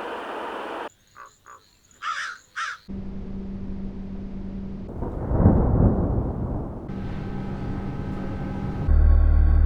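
A string of short horror ambience effects: a hissing noise bed cuts off about a second in, then four harsh crow-like caws, the last two louder. A low drone with steady hum tones follows, a rumble swells up and fades away midway, and a loud, deep drone comes in near the end.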